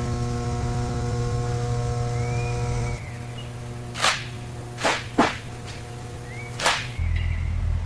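Four quick whooshes, like edited transition swishes: one about four seconds in, two close together about a second later, and one near the end, over a steady low hum that shifts abruptly twice.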